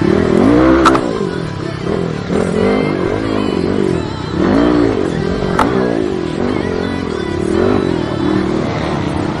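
Dirt bike engines revving up and down again and again, several overlapping. Two sharp clicks, about a second in and about five and a half seconds in.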